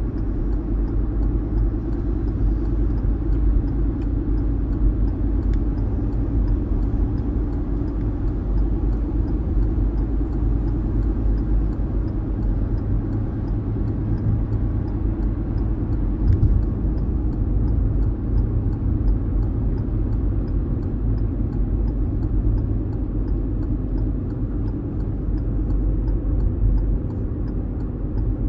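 Car driving at speed on a highway: a steady low rumble of tyre, road and engine noise.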